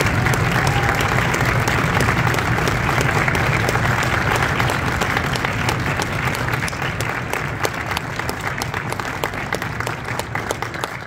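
Audience applauding, dense at first and thinning into scattered single claps near the end.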